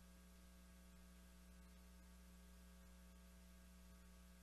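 Near silence apart from a faint, steady mains hum.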